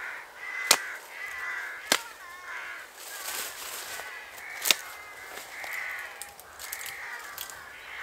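Hand axe chopping into saplings and undergrowth near the ground: three sharp strikes, about a second, two seconds and nearly five seconds in. Birds call repeatedly in the background.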